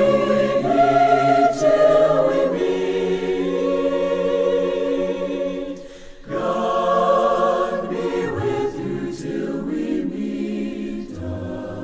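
A choir singing unaccompanied in held, slow notes; the singing breaks off briefly about six seconds in, then resumes and grows slightly softer toward the end.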